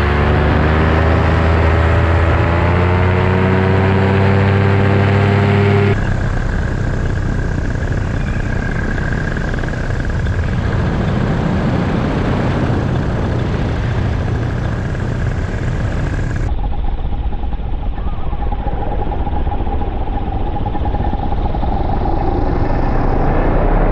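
Paramotor engine and propeller running steadily in flight, with wind rushing over the microphone. The sound changes abruptly about six seconds in and again about two-thirds of the way through, the clear engine note giving way to more rushing noise with a steady high whine.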